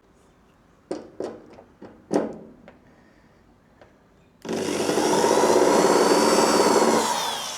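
A few light knocks, then an electric drill with a small 2 mm bit starts abruptly and runs steadily for about two and a half seconds, drilling a pilot mark into a spot weld in the steel panel. It is then released and winds down, its pitch falling.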